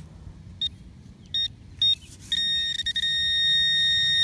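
Garrett pinpointer beeping: three short high beeps, then a steady high tone from about two seconds in. This is the pinpointer signalling a buried metal target close by.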